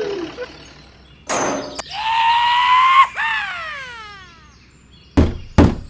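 Edited-in cartoon sound effects: a short whoosh, then a held pitched tone that rises slightly and falls away in a long downward glide, then two sharp thuds near the end.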